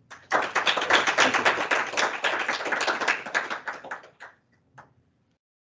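Applause: hands clapping rapidly for about four seconds, thinning out to a few last claps near the end.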